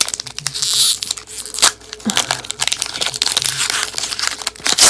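Foil Pokémon booster pack wrapper crinkling as it is handled and torn open, a dense run of sharp crackles and rustles.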